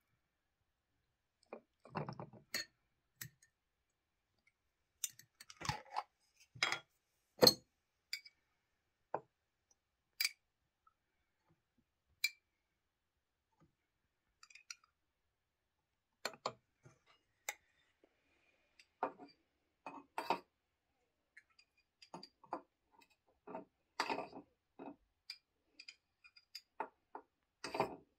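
Metal fork and spoon clinking and scraping against glass jars and glazed ceramic bowls as food is served out of the jars: scattered, irregular clinks with silence between them, the sharpest about seven seconds in.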